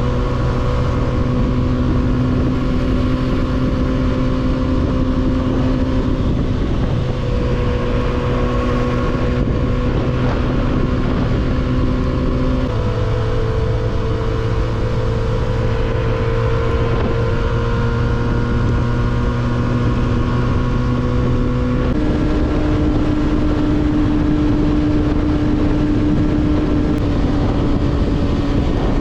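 300 cc motorcycle with an aftermarket exhaust, heard on board while riding at a steady engine speed. The exhaust note holds steady and steps to a new pitch three times.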